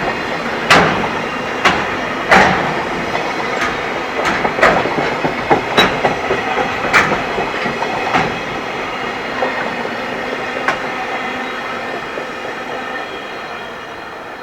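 A passing train's wheels clattering over rail joints: a run of sharp, uneven clacks over a steady rumble, the loudest in the first few seconds, then thinning out and fading as the train moves away.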